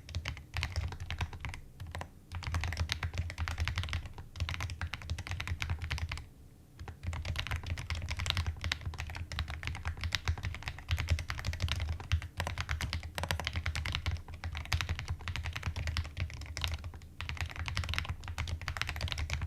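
ABM066 custom mechanical keyboard being typed on: a fast, continuous run of keystrokes, with a brief pause about six seconds in.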